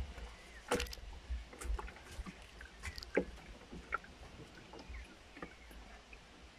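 Sparse light knocks and clicks from a hoop net being handled in a small boat, the loudest about a second in, over a faint low rumble.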